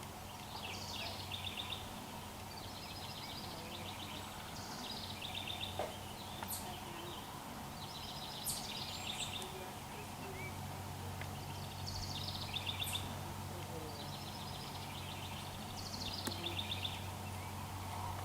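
A songbird singing the same short song over and over, a few notes followed by a fast trill, every few seconds, over a steady low hum.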